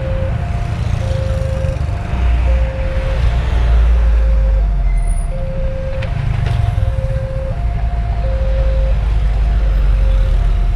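Railway level-crossing alarm sounding its alternating two-note electronic warning tone, low then high, about once every second and a half, the signal that a train is approaching and the barrier is coming down. Under it, the engines of passing trucks and cars rumble.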